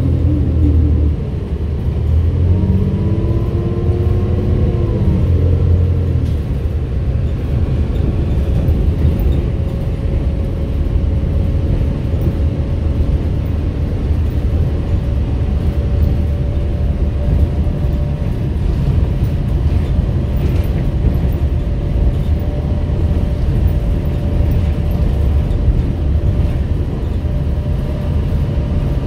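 Interior of a New Flyer D35LFR diesel city bus under way: the engine rises in pitch over the first few seconds as the bus accelerates, then settles into a steady low rumble with a faint constant hum as it cruises.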